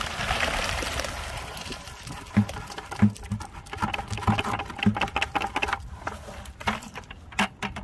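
Wet concrete mix sliding out of a plastic bucket into a post hole with a rushing hiss, then irregular knocks and thumps as the bucket is knocked against the wooden post to shake out the last of the mix.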